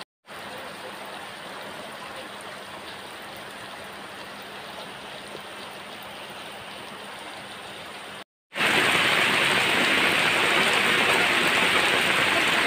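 Heavy rain falling steadily on a wet concrete rooftop, an even hiss. After a brief dropout about eight seconds in, louder, closer rain falls on puddled, muddy ground.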